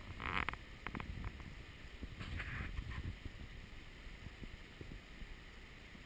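Mountain stream running over rocks, with wind buffeting the microphone in a fluctuating low rumble. Two short hisses stand out, near the start and about two and a half seconds in.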